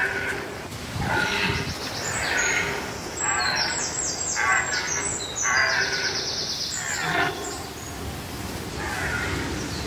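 Red deer stags roaring again and again during the rut. There are about eight loud calls, each lasting roughly a second.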